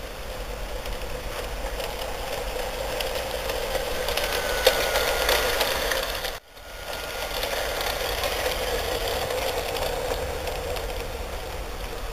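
LGB Spremberger 040 garden-scale model locomotive and its short parcels train running on track: a steady electric-motor whir with wheels clicking on the rails, growing louder up to about five seconds in. The sound drops out abruptly for a moment about six seconds in, then carries on steadily.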